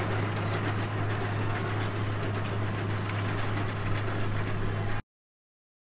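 Tractor engine running steadily under load as it pulls a tillage implement through the soil, a constant low drone that cuts off abruptly about five seconds in.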